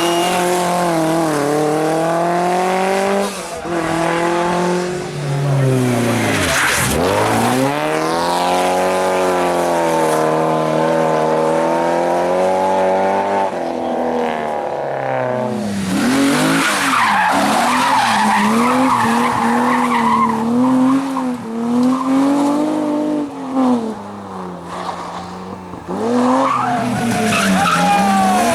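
Rally car engine being driven hard, revs climbing and dropping over and over through gear changes and lifts for corners, with tyres squealing at times.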